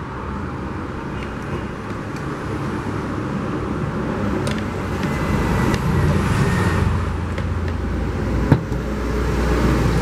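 Pliers snapping through a wire once, sharply, about eight and a half seconds in, with a few light clicks of the pliers being worked before it. Under it a steady low background rumble.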